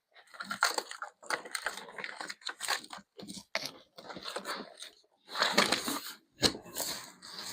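Cardboard box and packing material scraping, crinkling and tearing in irregular bursts as an e-bike is dragged out of its shipping box.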